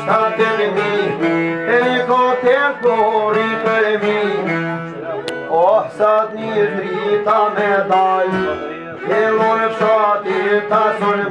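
A man singing an Albanian folk song in a high, bending voice, accompanied by a plucked long-necked lute and a violin.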